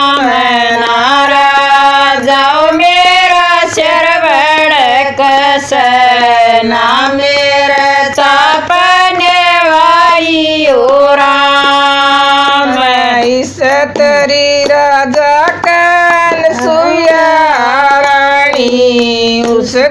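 Women singing a Haryanvi devotional bhajan unaccompanied, one voice leading in long held notes that bend up and down between phrases.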